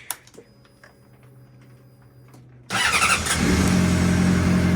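Faint clicks and a thin steady whine. About two-thirds of the way in, the 2005 Honda CBR600RR's inline-four engine starts suddenly and settles into a steady idle. It is running on a newly fitted, adjusted manual cam chain tensioner, meant to cure a cam chain rattle.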